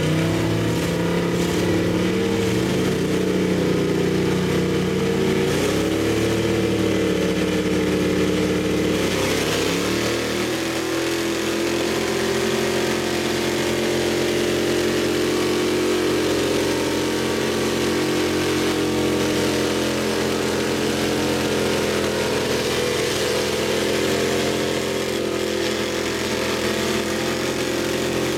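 4x4 pickup truck engine working hard under load in a truck tug of war, its wheels spinning in the dirt. The engine's pitch wavers and shifts for the first ten seconds or so, then holds steady at high revs.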